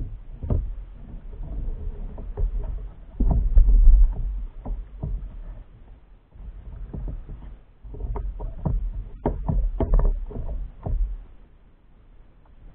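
Knocks, taps and rattles of fishing rods and gear against a plastic sit-on-top kayak, with water sloshing against the hull over a low rumble. They come in two busy stretches, with a lull about halfway through, and die down near the end.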